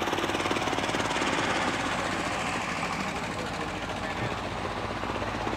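Engine running steadily with a fast, rough rattling beat.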